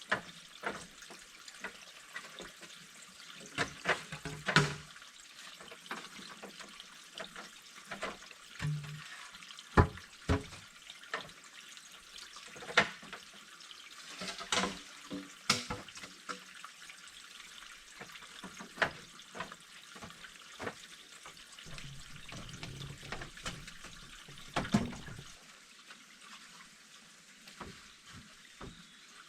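Water splashing and trickling, with irregular sharp clicks and knocks.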